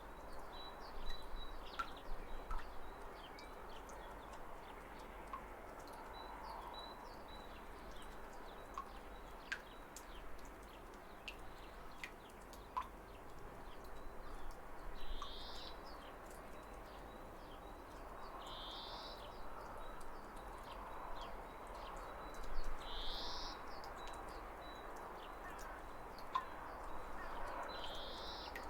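Birds chirping over the soft, steady rush of a waterfall. About halfway in, one bird starts a short rising call that it repeats about every four seconds, over a faint high trill and scattered small ticks.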